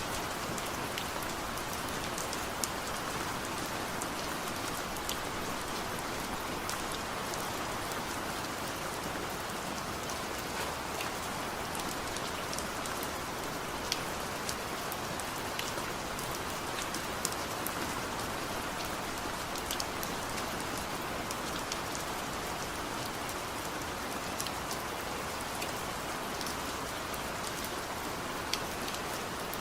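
Steady rain falling on a surface, an even hiss with scattered sharper drop hits, no thunder.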